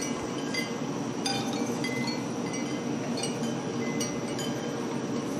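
Wind chimes ringing in scattered, irregular clear notes over a steady low hum.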